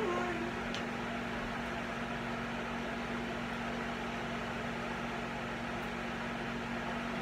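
Over-the-range hood exhaust fan running with a steady whir and a constant low hum, pretty loud.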